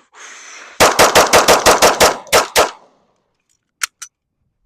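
Handgun firing a rapid string of about ten shots: eight in quick succession at roughly five a second, then two more slightly spaced. Two faint clicks follow near the end.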